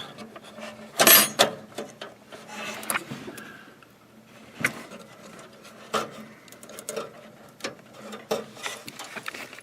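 Scattered clicks and knocks of a Wi-Fi card's cable connector and other parts being handled and plugged in inside a tower computer case. The loudest click comes about a second in.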